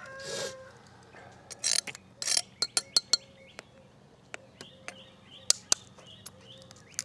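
A knife blade tapping and cracking a chicken eggshell: a string of sharp clicks and taps, thickest a couple of seconds in. Faint bird chirps repeat in the background through the second half.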